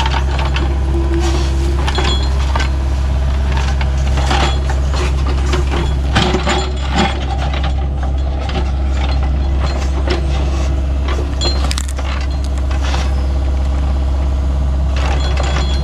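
A vehicle's engine running steadily with a deep low hum, with frequent rattles and knocks throughout.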